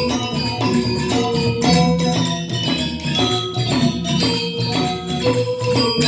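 Balinese Semar Pagulingan gamelan playing, with tuned metal keys struck in quick, even strokes that ring on.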